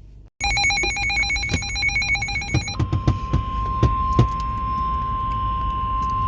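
Emergency Alert System broadcast on NOAA Weather Radio: a warbling SAME digital header data burst starts about half a second in and lasts about two seconds. It is followed by the steady 1050 Hz warning alert tone, which signals that a weather warning is about to be read. A low rumble and a few knocks sound underneath.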